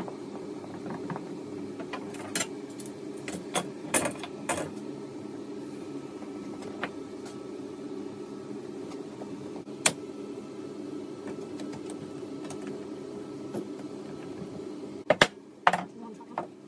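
Metal bar clamps clicking and knocking against a panel of maple and mahogany strips as they are put on and tightened, with the loudest knocks near the end, over a steady low hum.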